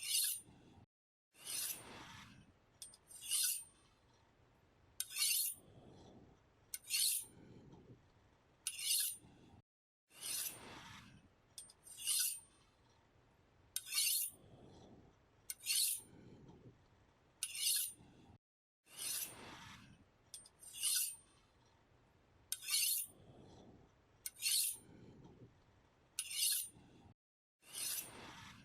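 Knife blade being sharpened with repeated scraping strokes, about one every two seconds, each a bright, hissy rasp. The strokes stop for a moment a few times.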